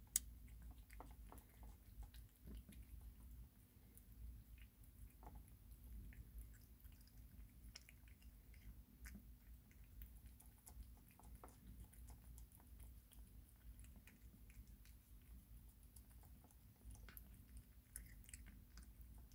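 A kitten eating wet cat food from a plastic bowl: faint, irregular chewing clicks.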